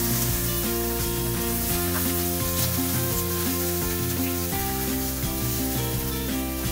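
Pork knuckle sizzling as it browns in a little hot oil in a nonstick wok, turned over with metal tongs, under steady background music.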